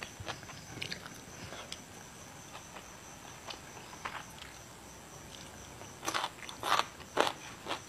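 Close-miked chewing and crunching of crisp vegetables, with scattered small clicking crunches and a run of louder crunches near the end.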